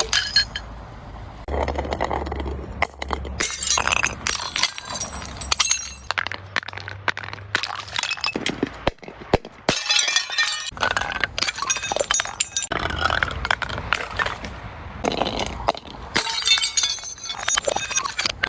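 Glass bottles breaking: a long run of irregular crashes and crunches, with shards clinking and tinkling in between.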